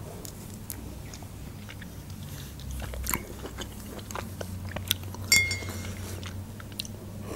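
Close-up chewing, lip smacks and wet mouth clicks of a person eating baked chicken wings and licking her fingers. About five seconds in comes a sharp clink that rings briefly.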